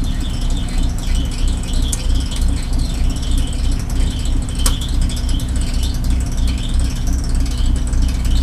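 Sportfishing boat's engine idling with a steady low rumble, heard from on deck, with a single sharp click about halfway through.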